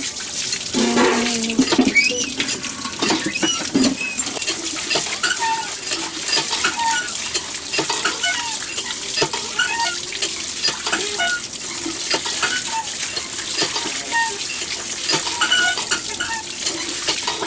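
Water pouring from a spout over tiny fish being rubbed and rinsed by hand in a plastic basket, with frequent clicks and clinks of steel bowls and baskets being handled.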